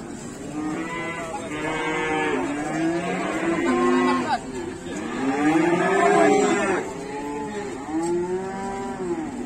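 Cows mooing: about four long, arching calls in a row, some overlapping, the loudest about halfway through.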